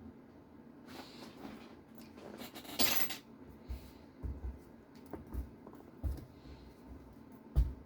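Small metal parts and tools clinking and being set down on a workbench while an RC car is taken apart, with a short noisy burst about three seconds in and a few dull knocks, the loudest near the end.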